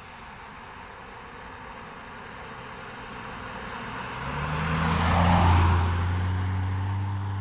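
A road vehicle approaches and passes close by. Its engine and tyre noise builds over a few seconds to its loudest about five seconds in, then eases into a steady low engine hum.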